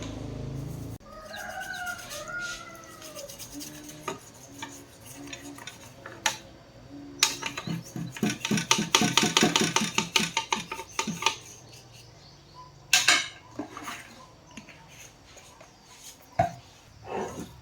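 Metal clicking and clattering of tools and parts being handled, with a dense run of rapid clicks through the middle and a few sharp knocks later. A bird, likely a chicken, calls briefly near the start.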